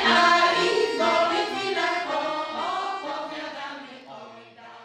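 Women of a village folk singing group singing a song together in several voices. The singing grows fainter and fades out near the end.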